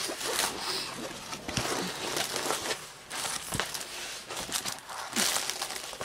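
Rolled diamond painting canvas being unrolled and smoothed flat by hand, its paper cover rustling and crinkling with small ticks and taps. The rustle gets louder about five seconds in.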